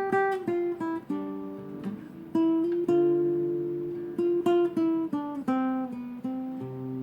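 Acoustic guitar playing a slow melody of plucked notes, each ringing out and fading before the next.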